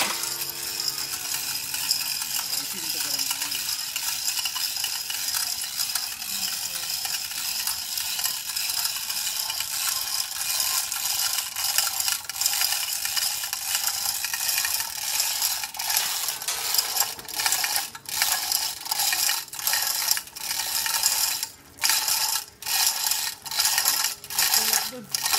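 Continuous rapid mechanical clicking and rattling, like a ratchet mechanism working, turning stop-start with several short breaks in the last third.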